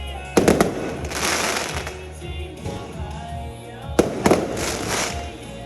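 Fireworks shells bursting: a sharp bang with a few quick reports about half a second in, and another about four seconds in. Each is followed by a second or so of crackling.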